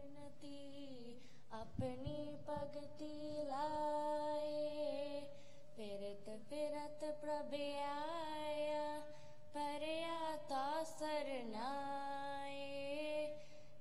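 A female voice singing a Sikh devotional verse in long, held notes that slide and waver between pitches.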